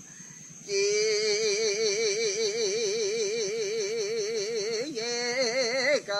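A Mentawai sikerei (shaman) singing solo. After a short pause for breath he holds one long note with a wide, even vibrato for about four seconds, then moves through a couple of shorter notes and starts a new phrase near the end.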